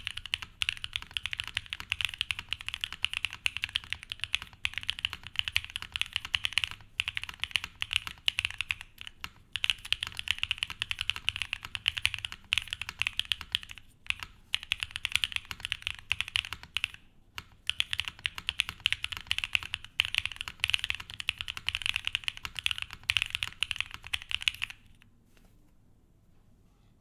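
Fast, continuous typing on a Salane Eclipse60 custom mechanical keyboard with lubed and filmed Gateron Cream Soda linear switches on an aluminium plate, with brief pauses between bursts. The typing stops near the end.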